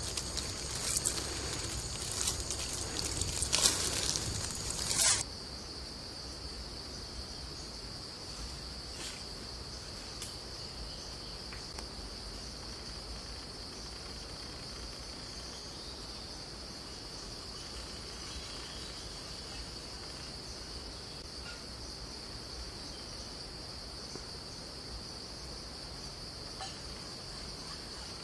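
Water poured from a jug splashes over hands rinsing peeled boiled eggs for about five seconds, then stops suddenly. After that a steady high insect drone goes on without change.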